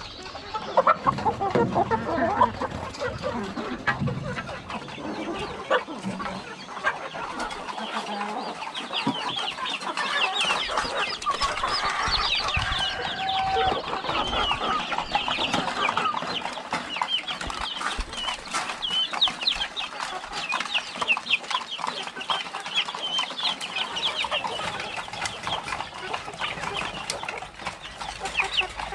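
A flock of chickens clucking and calling continuously: many short calls overlap one another without a break.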